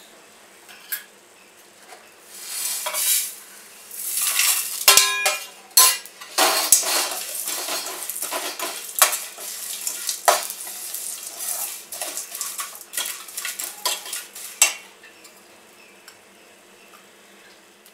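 Whole dry spices (cumin, sesame, bay leaves, cardamom and others) being stirred in a stainless steel wok with a steel spoon: the spoon scrapes and clinks on the metal and the seeds rattle. About five seconds in the spoon strikes the pan with a short ringing clang. The stirring stops about three seconds before the end.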